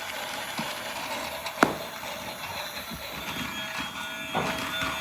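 Small toy motor whirring steadily as the toy vehicle travels, with one sharp click about one and a half seconds in.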